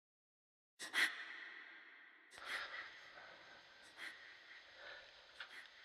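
A person's breathing: a sharp intake of breath about a second in, another about a second and a half later, then fainter breaths, each trailing off slowly.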